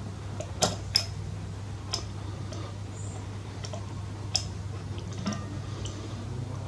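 Light metallic clicks and taps of an Allen key and hand tools at work on a motorcycle's rear brake caliper, about five sharp ones spread through, over a steady low hum.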